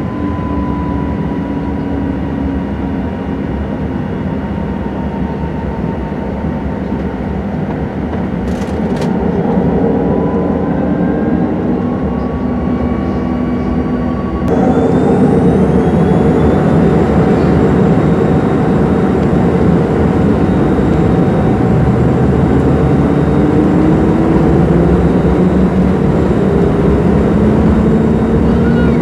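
Airliner engines heard from inside the cabin during taxi: a steady whine and hum. It steps up in loudness about halfway through, and rising tones near the end show the engines spooling up.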